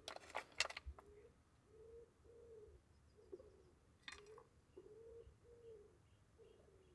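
Faint pigeon cooing, a run of soft, low hooting notes at about two a second, with a few light clicks near the start and again about four seconds in.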